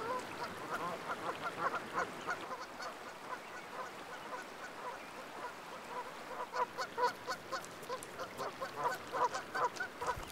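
Canada geese honking in a long series of short calls, busier and a little louder in the second half.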